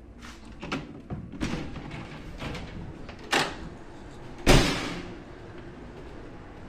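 A heavy ship's accommodation door slams shut once, a loud bang that rings briefly, a second after a sharp click. Light footfalls come before it, and a steady low hum runs beneath.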